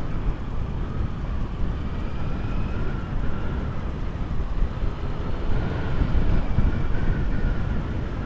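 Honda Hornet 900 motorcycle on the move, its 900cc Fireblade-derived inline-four running under a steady low rumble of wind and road noise on the microphone, with a faint engine whine that wavers up and down. The noise swells a little about six seconds in.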